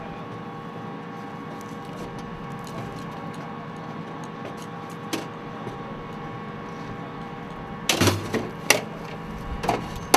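Belted 25 mm cannon rounds clinking and knocking against each other as they are handled on a tarp: a single knock about five seconds in, then several loud sharp metallic knocks in the last two seconds. A steady engine hum runs underneath.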